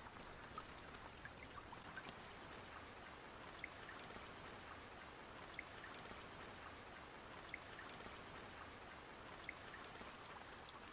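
Faint steady trickle of water in a flooded house, with small drips, the clearest about every two seconds.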